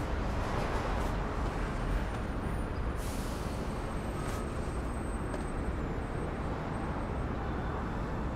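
Steady low rumble of road traffic, with a couple of faint clicks about three and four seconds in.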